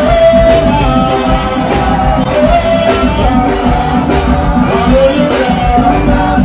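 Loud band music with a steady beat and a melody line on top.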